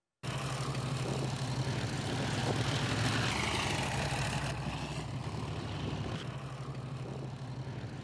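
Road noise inside a moving car: a steady low engine drone under tyre and road hiss. The hiss swells a couple of seconds in and eases off about halfway through.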